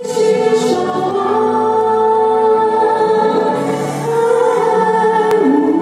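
A female singer and a choir singing live through microphones, in long held notes.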